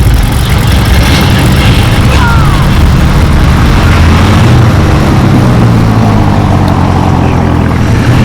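Dodge Ram's 5.9-litre Cummins inline-six turbo diesel running steadily through its new exhaust tip, a loud, steady low rumble.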